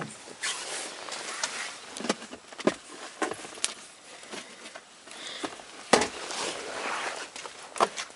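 Scattered clicks, knocks and rustling from someone rummaging inside a parked car's cabin, with one sharper knock about six seconds in.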